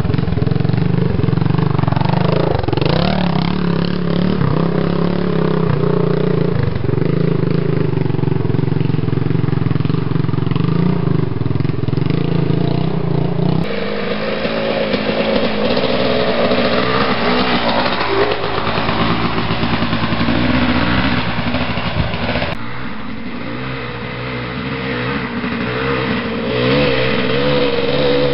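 Off-road dirt bike engines running and revving on a trail, the pitch rising and falling with the throttle. The engine sound changes abruptly about halfway through and again near the end.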